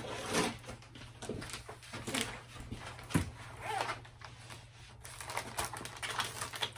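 Small plastic bags of diamond painting drills being handled and gathered up, crinkling, with scattered light clicks and taps.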